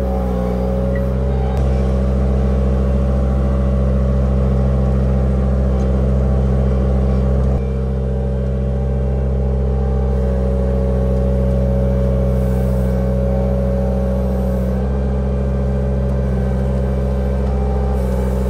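Avant 423 compact loader's diesel engine running steadily under way, heard from the driver's seat, a little quieter from about seven and a half seconds in.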